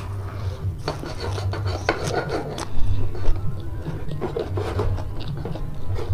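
Close-miked chewing of a mouthful of fresh lettuce leaf wrapped around rice and spicy squid: a dense run of small crackles and moist rasps, busiest in the first half. Toward the end come fingers pressing and mixing rice on the plate.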